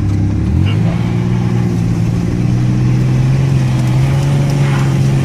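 Pickup truck engine running under throttle: its pitch steps up about half a second in, then holds a steady drone that creeps slightly higher.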